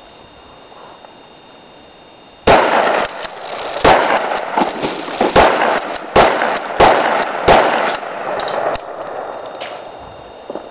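Escort 12-gauge shotgun firing a rapid string of about six shots, starting about two and a half seconds in and spread over about five seconds, each crack followed by an echo that dies away after the last shot.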